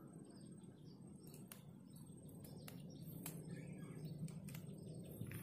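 Faint bird chirps over quiet outdoor background noise, with a few light clicks and taps scattered through.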